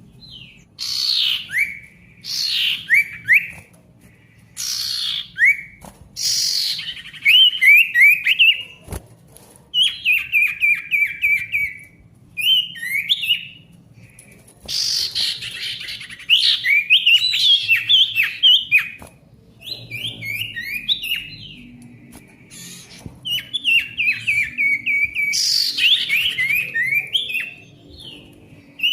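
Common iora (sirtu) singing energetically: loud phrases of rapid chattering notes and down-slurred whistles, each a second or a few seconds long, separated by short pauses.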